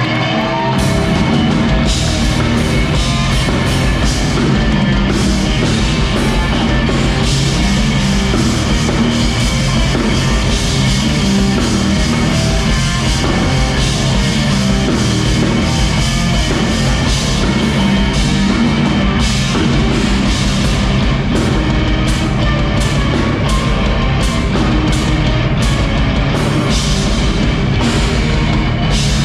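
Live rock band playing loudly, a drum kit beat coming in about a second in under dense, heavy band music.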